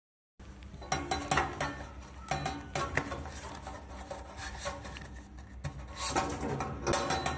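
Postcards pushed through the slot of a post box, with repeated clicks, knocks and clinks from the slot's flap and the box. It starts after a moment of dead silence.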